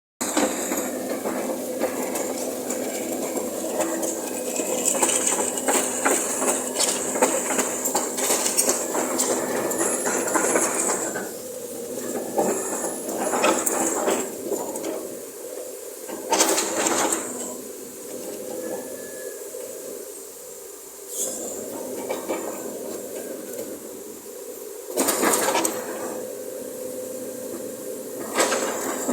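Sumitomo SH210 excavator running, its diesel engine and hydraulics giving a steady hum with hiss, and louder hissing surges at about 16 and 25 seconds in.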